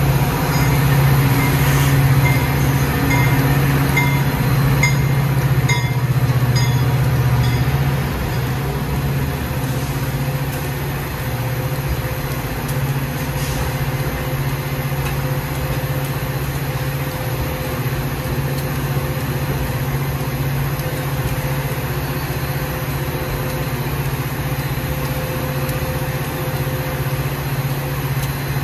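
Metra commuter train's locomotive running with a steady engine hum, louder for the first eight seconds and then easing to a lower, even level. For a few seconds near the start, a short high tone repeats about three times every two seconds.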